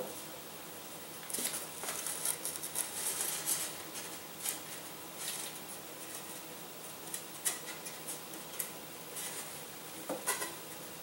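Small hard parts clicking and rattling as they are handled on a tabletop, with light rustling: a sharp click at the start, then a busy run of short clicks for most of the stretch.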